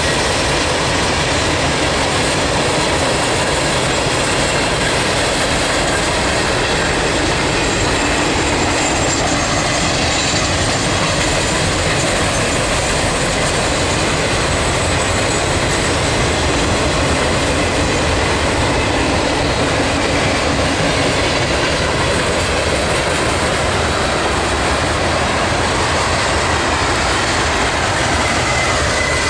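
Norfolk Southern mixed freight train's boxcars and tank cars rolling past, a loud, steady rumble of steel wheels on the rails.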